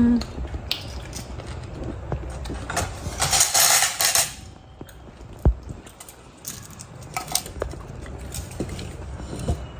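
Ceramic plates, spoons and forks clinking at a dining table. A louder clatter and scrape comes about three seconds in, as a plate is lifted off a stack with cutlery on it, followed by scattered light clinks of spoons against soup cups.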